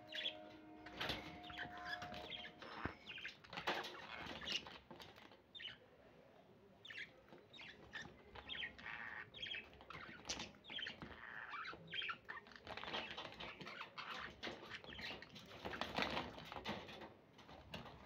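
Several budgerigars chattering in short, irregular chirps, with brief wing flutters.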